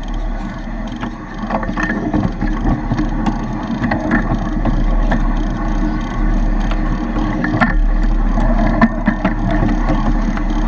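A 7¼-inch gauge miniature locomotive running along the track: a steady rumble from the train, with the wheels giving several irregular clicks as they cross rail joints and pointwork.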